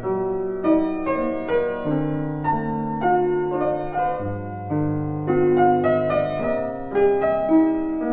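Background piano music: a slow melody of struck notes over lower held notes that change every second or two.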